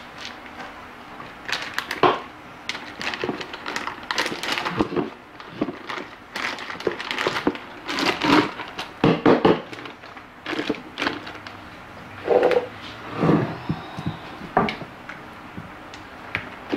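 Plastic rustling and crinkling, with irregular knocks and clatters as containers are picked up and set down on a counter.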